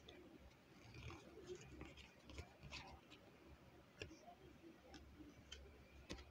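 Quiet, irregular clicks and taps of stiff tarot cards being handled, a card lifted off a small wooden easel and laid on the pile, over a faint low hum.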